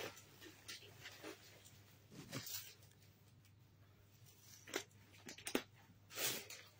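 Faint rustling and crinkling of unstitched suit fabric and plastic-wrapped suit packets being handled, in scattered short bursts, the fullest one near the end.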